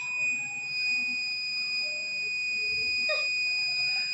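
Buzzer of an Arduino flood alarm sounding one continuous high-pitched tone, set off by the water level sensor detecting water.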